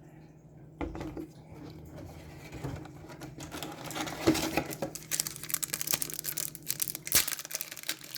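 Hockey trading cards and their pack wrapper being handled: crinkling and rustling with small papery clicks, growing busier from about three seconds in, after a single knock near the start.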